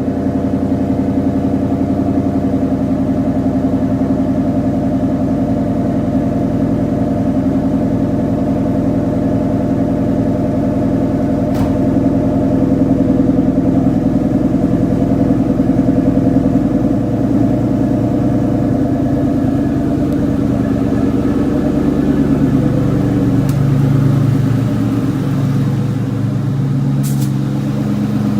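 2003 Ford Mustang Mach 1's 4.6-litre V8 idling steadily just after a start-up, having sat unstarted for a while. The idle pitch shifts a little past the middle, and there are a few light clicks.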